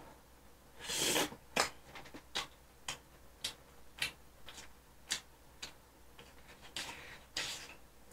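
Light, irregular taps on a smartphone touchscreen, about one every half second, as fingers scroll and tap through the phone; two softer rustling noises come about a second in and near the end.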